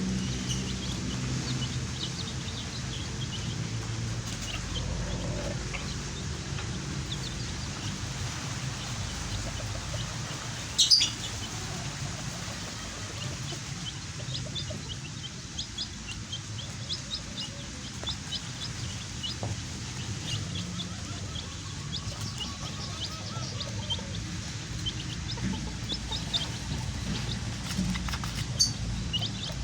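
A flock of baby chicks peeping, with many short high peeps scattered throughout, plus one louder, sharp high sound about 11 seconds in.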